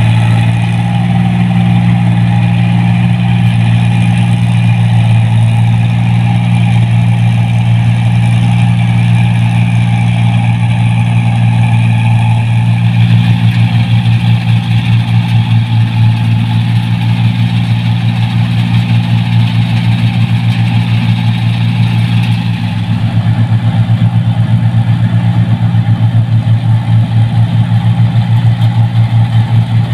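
Rice combine harvesters running at work in the paddy: a loud, deep, steady engine drone with the harvester's machinery. Near the middle the drone begins to throb, and about two thirds in it cuts to a second combine with a similar, faster-pulsing drone.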